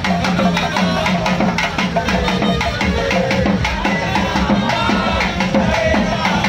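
Percussion-led procession music: drums struck in fast, even strokes, several a second, with a wavering melody line above them.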